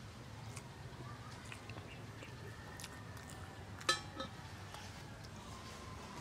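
Close-up mouth sounds of a person eating soft pork ribs and rice by hand: quiet chewing with small wet clicks and smacks, and one louder sharp click about four seconds in.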